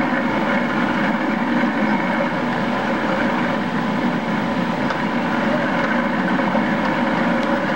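Motorboat under way: a steady drone of engine and rushing water.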